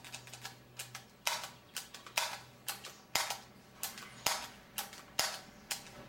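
Plastic push-button keys of an old blender's switch bank being pressed one after another. They click about twice a second, their contact springs freshly oiled to free keys that stuck and failed to engage.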